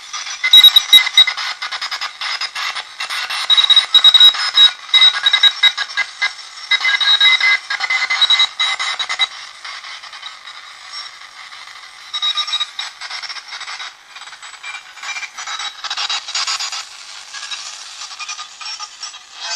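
Tesla 563A tube radio's loudspeaker crackling with static and interference, with a high steady whistle that comes and goes; it is loudest in the first half and weaker after that.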